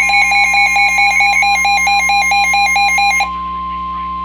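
Weather alert radios sounding a flash flood warning. A rapid electronic beeping alarm alternates between two pitches over the steady 1050 Hz NOAA Weather Radio warning alarm tone. The beeping cuts off about three seconds in, leaving the steady tone on its own.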